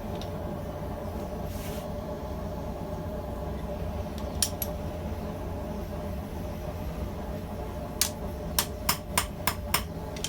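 A steady low hum, then near the end a blacksmith's hammer starts striking steel on the anvil in a quick run of ringing blows, about three a second. Two light metallic clicks come about halfway through.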